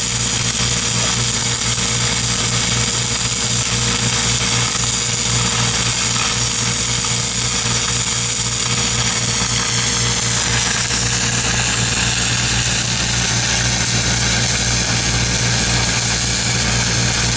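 Shielded metal arc (stick) welding on steel pipe: two arcs crackling and hissing steadily, over a steady low drone.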